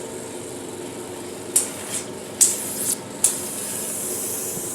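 Hydrodermabrasion machine running with a steady hum, its handpiece hissing in short bursts and then more steadily near the end.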